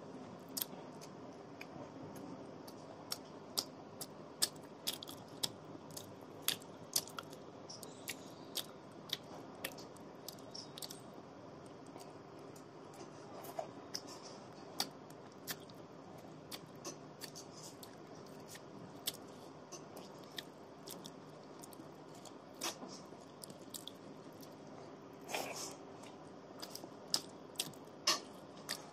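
Close-up eating sounds: irregular sharp clicks and smacks of chewing, with fingers mixing rice and curry on a steel plate, over a faint steady hum.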